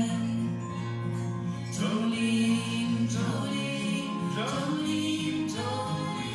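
Live acoustic music: two acoustic guitars strummed while a woman sings long, held notes into a microphone.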